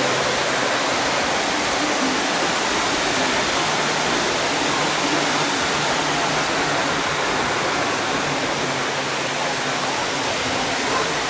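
Waterfall splashing down rocks into a shallow rocky stream, a steady rushing of water with no break.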